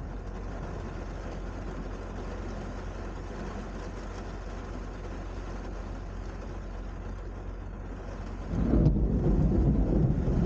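Steady rain noise with a low background rumble, then near the end a loud, low roll of thunder breaks in and keeps rumbling.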